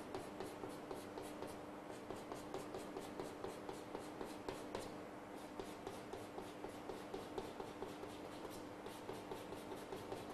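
Chalk on a blackboard, tapping and scraping in many short quick strokes, several a second, as rows of short dashes are drawn. A faint steady hum lies underneath.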